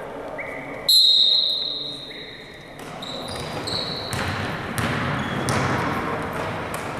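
Basketball dribbling and bouncing on a gym floor under a murmur of spectators' voices. About a second in, a sudden loud high steady tone sounds for about a second, and a weaker one follows around three seconds in.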